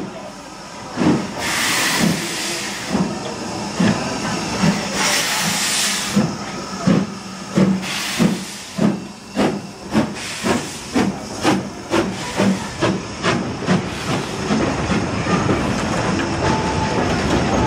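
BR Standard Class 4MT 2-6-4 tank locomotive pulling away with a goods train: chuffing exhaust beats that start about one a second and quicken steadily to two or three a second. Steam hisses from the cylinders in two long bursts in the first six seconds. In the last few seconds the beats blur into the steady rumble of the wagons rolling past.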